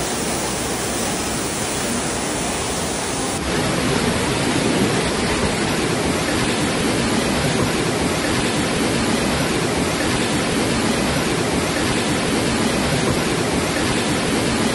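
Rushing floodwater, a steady noise. About three and a half seconds in, a cut brings a louder, fuller rush.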